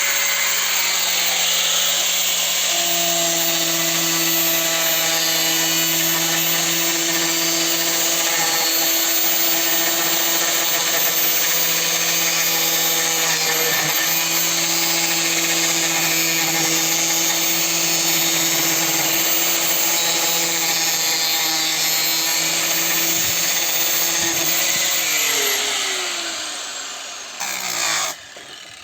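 Electric power tool cutting a piece of siding to length, its motor running at a steady high speed for about 25 seconds. It is then switched off and spins down with a falling whine, with a brief louder clatter near the end.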